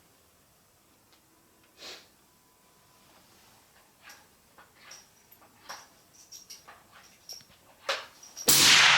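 Faint scattered clicks and rustles, then near the end a single loud rifle shot fired at a steel target downrange.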